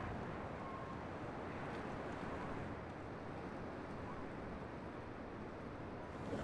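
Steady, even rushing ambient noise, strongest in the low range, with no distinct events.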